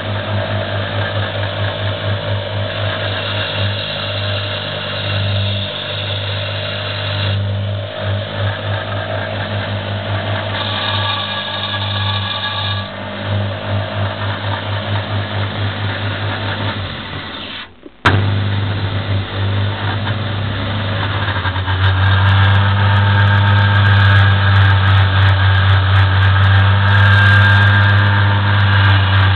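Home-built 72-inch belt sander running on a cheap speed controller and bridge rectifier, with a strong low electrical hum and the belt whirring. It dips and cuts out briefly about 18 seconds in, coming back with a sharp click. It then runs louder and steadier, and scattered gritty crackles near the end come as a small steel bar is brought to the belt.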